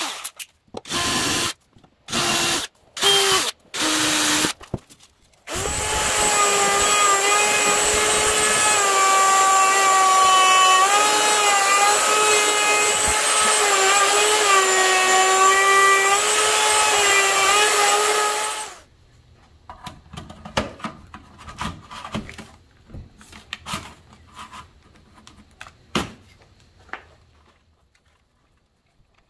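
A cordless drill runs in about five short bursts, driving screws into a maple frame. Then a wood router starts and runs steadily for about thirteen seconds, cutting the edge of a maple cabinet, its pitch dipping slightly under load, and stops. Faint clicks and handling noise follow.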